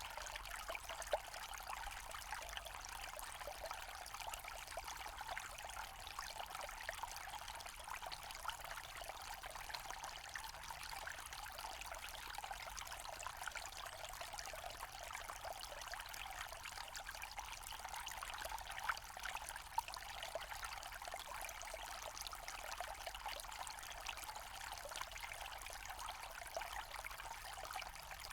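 Small forest stream running over stones, a steady trickling and pouring with fine splashes.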